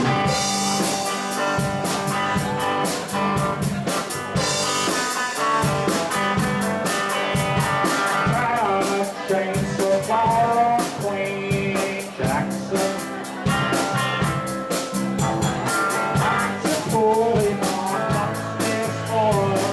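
Live rock band playing with a steady drum-kit beat, electric guitar and bass, and a voice singing over it.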